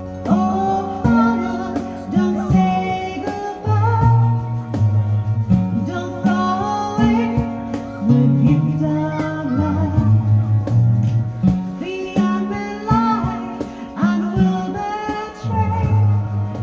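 Folk band playing live: acoustic guitar and a moving bass line under a wavering melody, with singing.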